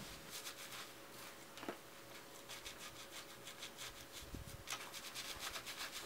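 Fingers scrubbing shampoo lather into hair at the scalp: faint, quick, repeated rubbing strokes.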